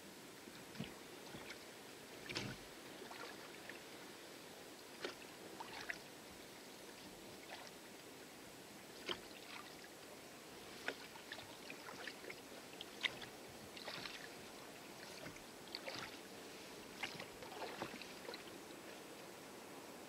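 Small rowboat being rowed with oars in calm water: quiet splashes of the oar blades and of water against the hull, with short sharp clicks every second or two over a faint steady hiss.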